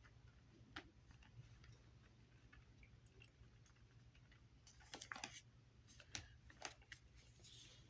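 Near silence: faint room hum with a few scattered faint clicks, a small cluster of them about five seconds in.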